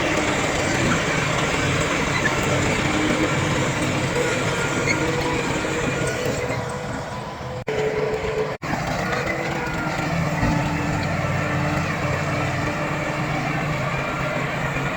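Heavy diesel earthmoving machinery, bulldozer and dump truck engines, running steadily. The sound cuts out very briefly twice about halfway through.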